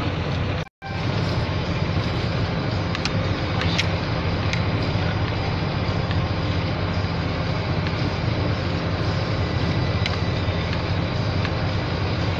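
Steady engine and road noise inside the cab of a GAZelle van cruising on a highway. The sound cuts out for an instant less than a second in, then carries on unchanged.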